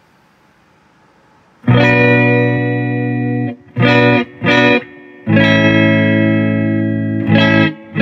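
Electric guitar through an amp playing chords: a long held chord about two seconds in, two quick stabs, another long held chord, then two more short stabs. The Acapulco Gold fuzz pedal is still bypassed, with its LED unlit, so these are the unaffected chords before the fuzz is switched on.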